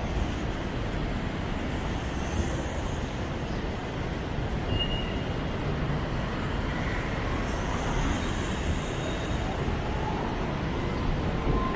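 Steady city street traffic at an intersection: cars and vans driving past with a continuous low rumble.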